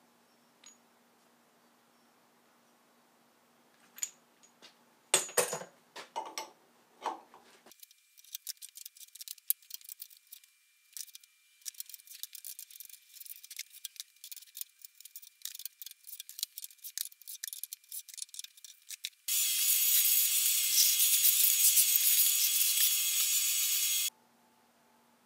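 Steel T-slot bolts, nuts and washers being taken off a milling machine table: metal knocks and clinks, then a long run of fast, thin, high-pitched clattering. Near the end a loud, steady hiss runs for about five seconds and cuts off abruptly.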